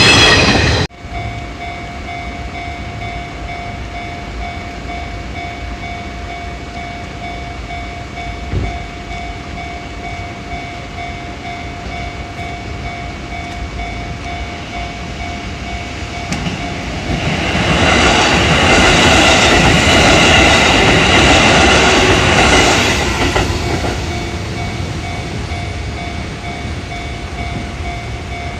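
Sanyo Electric Railway train passing a Japanese level crossing, its wheels clacking over the rail joints, loudest for about six seconds in the second half, while the crossing's warning bell rings steadily throughout. A loud sound cuts off abruptly within the first second.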